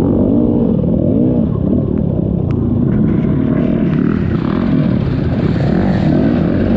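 Dirt bike engine revving hard, its pitch rising and falling again and again about once a second as the throttle is worked over rough ground.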